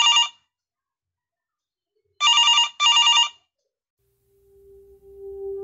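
Old-style telephone bell ringing in a double ring-ring pattern, each ring a rapid metallic trill: the tail of one ring at the start and a full ring-ring about two seconds in. Near the end a held musical note fades in.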